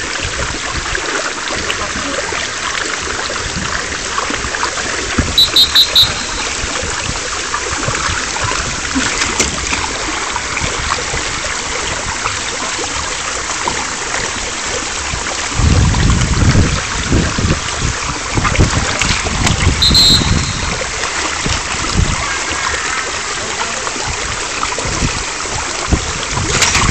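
Water rushing down an open fibreglass water slide, a steady hiss. Twice a whistle blows a quick series of short high blasts, about five seconds in and again about twenty seconds in, the loudest sounds here. From about fifteen seconds in, low buffeting of wind on the microphone comes and goes.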